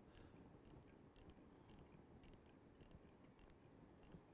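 Faint, uneven clicks of a dental implant ratchet wrench as an implant fixture is turned into a tight site in a practice block at excessive insertion torque.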